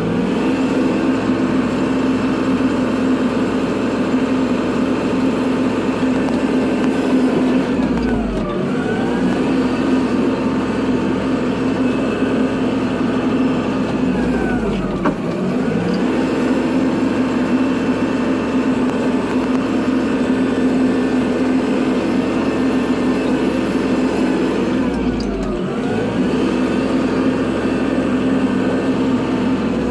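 Kubota tractor's diesel engine running steadily while plowing snow. Its pitch dips and climbs back three times, about 8, 15 and 25 seconds in.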